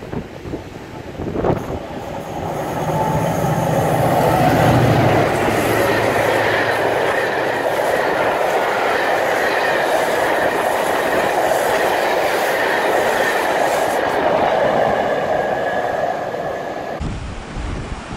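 Double-headed Class 88 and Class 68 locomotives passing at speed, with a low engine drone that peaks about four to five seconds in. The blue-and-grey coaches follow with a long, steady rush of wheels on rail, which cuts off suddenly near the end.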